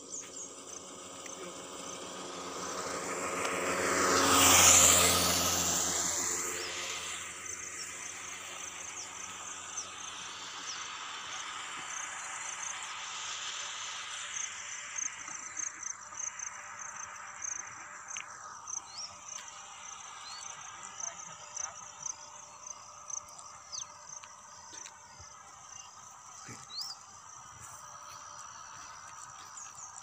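A vehicle passes close by. Its sound swells to a peak about five seconds in and fades away as its pitch drops. Insects chirp steadily throughout in a high, pulsing trill.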